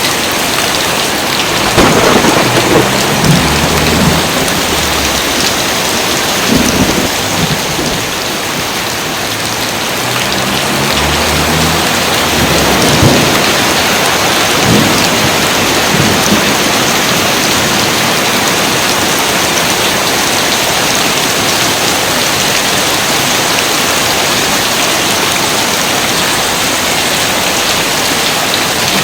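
Steady heavy rain falling, with thunder rolling twice: once about two seconds in and again from about eleven to sixteen seconds in. After that only the rain continues.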